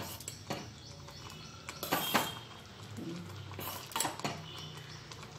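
Steel spoon stirring thick oats porridge in a steel pot, clinking against the pot's side several times at uneven intervals, with soft scraping in between.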